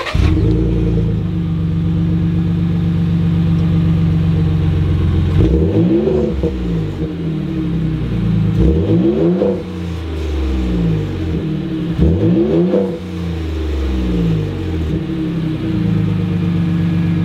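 2018 Ford Raptor's 3.5-litre twin-turbo EcoBoost V6 on its stock exhaust, starting up and settling into idle, then revved three times, each rev climbing and dropping back to idle. It definitely sounds like a V6.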